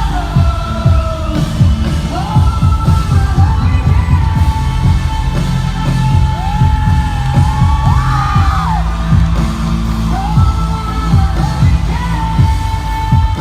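Live pop music in a large hall, recorded from the audience: a sung melody over heavy, booming bass and a steady drum beat, with yells from the crowd.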